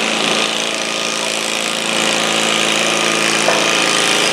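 Stock altered garden tractor's engine running hard at a steady speed as it drags a weighted stoneboat sled down the dirt track, over a steady hiss.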